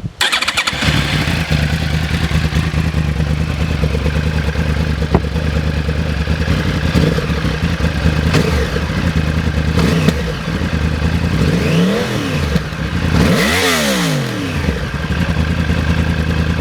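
2009 Yamaha R1's crossplane inline-four on its stock exhaust, starting up and then idling steadily. It gets two quick revs near the end, the pitch rising and falling back each time.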